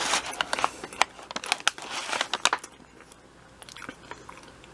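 Paper sandwich bag crinkling and rustling in sharp crackles as a toasted sub is handled on it, dying down after about two and a half seconds.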